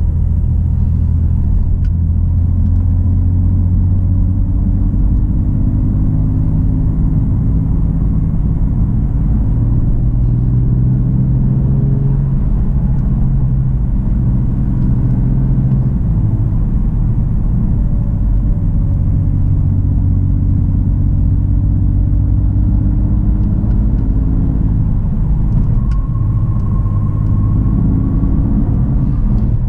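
BMW F80 M3's twin-turbo 3.0-litre inline-six running at a gentle cruise, a steady low rumble whose pitch drifts slowly up and down with light throttle changes.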